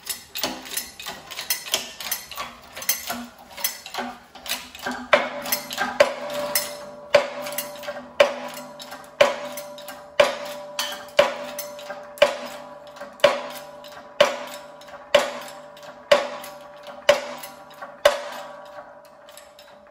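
Pump handle of a 20-ton hydraulic shop press being worked stroke by stroke, a metallic click with each stroke, as a new front wheel bearing is pressed into a steering knuckle. The clicks come quick and uneven at first, then settle to about one a second over a steady ringing hum, and stop near the end.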